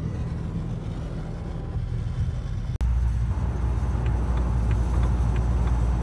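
Road and engine noise inside a car cruising on a motorway: a steady low rumble. It breaks off for an instant a little under three seconds in and comes back deeper and louder.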